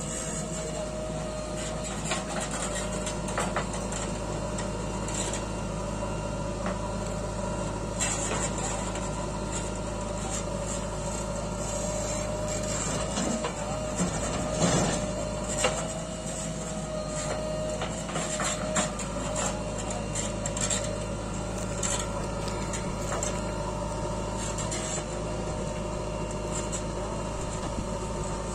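JCB 3DX Eco backhoe loader's diesel engine running steadily with a held hydraulic whine as it works, while soil and stones knock and clatter into the steel tipper body several times, loudest about halfway through.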